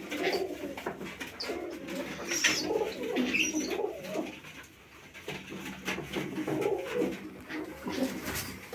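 Uzbek tumbler pigeons cooing, a repeated warbling coo that wavers up and down, with a brief lull about halfway through.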